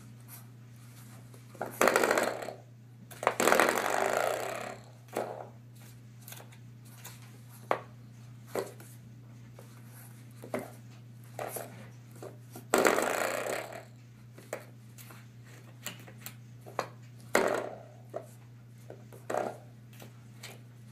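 Coiled-spring doorstop being pawed and bitten by a puppy: a series of sharp twangs and clicks, with a few longer buzzing boings, over a steady low hum.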